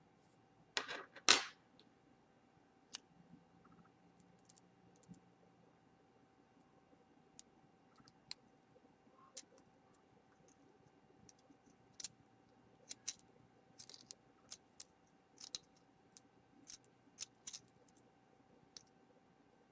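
Tweezers and small metal tools clicking and tapping against an iPhone 4's frame while fitting a tiny screw. The clicks come irregularly, with a louder rattle about a second in.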